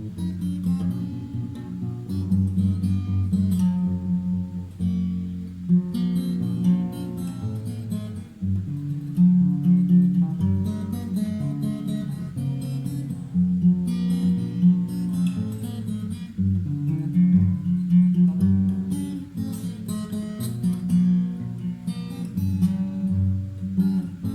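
Acoustic guitar played without singing, plucked notes and chords over a bass line.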